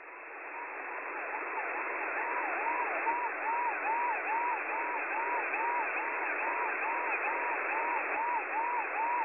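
Shortwave radio reception of a siren-type jamming signal: a tone that swoops up and back down a little more than twice a second, over steady receiver hiss. It fades in over the first second or two.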